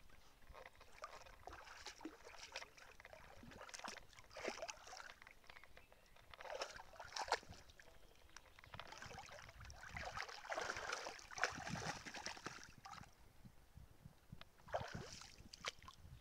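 A dog wading in shallow water, its paws and muzzle making irregular light splashes and sloshing, with a busier spell of splashing in the middle.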